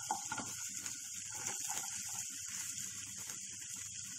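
Hot ghee sizzling in a frying pan as chopped onions are tipped into crushed garlic, ginger and whole spices. A steady hiss runs under many small pops and crackles.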